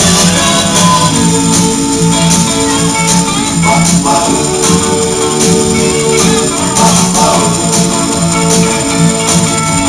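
Instrumental break of an upbeat recorded song, with a tambourine keeping a steady beat over held instrument notes.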